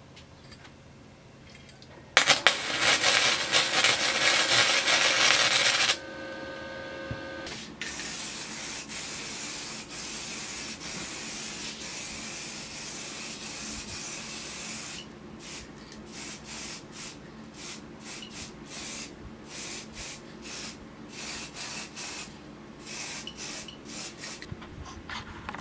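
Aerosol spray can of matte paint being sprayed onto a motorcycle front fork: a steady hiss for several seconds, then short repeated bursts of spray about once a second in the second half. Before the spraying, there is a louder hiss of about four seconds starting about two seconds in.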